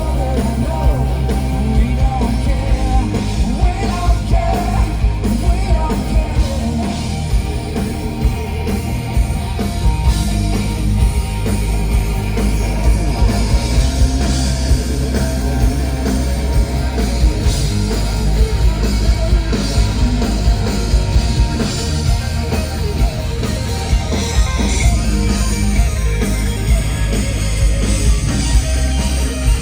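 Hard rock band playing live through a festival PA: a driving beat with heavy bass and drums, distorted rock instrumentation and a singer's voice, recorded loud from the crowd.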